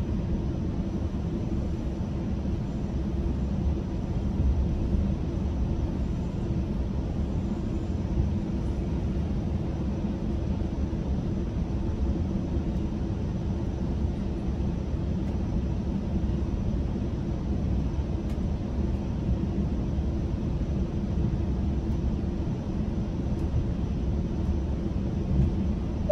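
GO Transit commuter train running, heard from inside a passenger coach: a steady low rumble of wheels on rail with a faint continuous hum.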